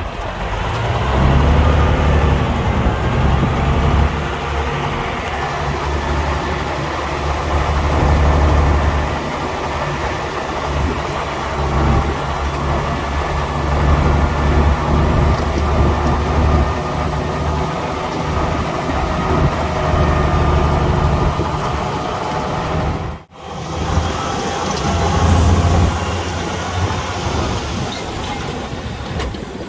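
Bulldozer's diesel engine working under load, its low note rising about a second in, then swelling and easing again and again. The sound cuts out abruptly for a moment a little over two-thirds through, then resumes.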